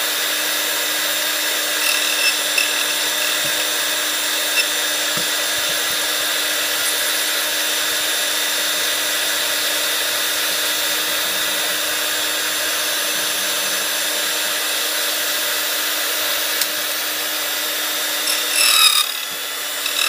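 Silca 007-A portable key duplicating machine running steadily, its motor humming as the cutter mills a key blank traced from the original key. A few sharper scrapes come near the end.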